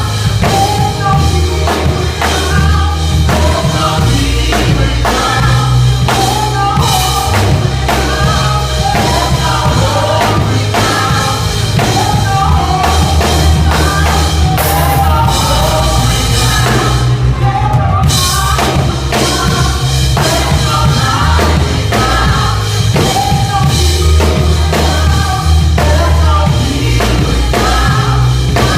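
Gospel music with singing over a drum kit and heavy bass.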